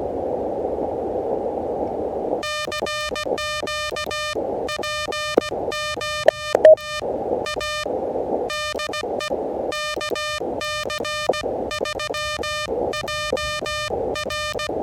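Elecraft KH1 transceiver's CW sidetone: a single tone keyed on and off in Morse code dots and dashes as the operator transmits, the receiver's band hiss muted under the keying. Plain hiss fills the first couple of seconds and the longer gaps, and a few sharp clicks come about five to seven seconds in.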